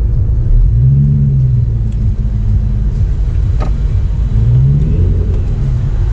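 Straight-piped 2005–06 Ford GT's supercharged 5.4-litre V8 idling, heard inside the cabin as a deep, steady rumble that twice swells briefly in pitch, about a second in and again near five seconds.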